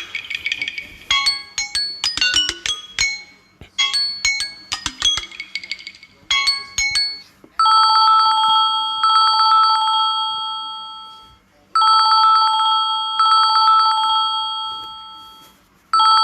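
Samsung Galaxy A21s ringtones playing. First a melody of short, chime-like notes in quick phrases, then, about halfway through, a different ringtone: a rapid trilling ring like an old telephone bell, sounding in long rings with short gaps between them.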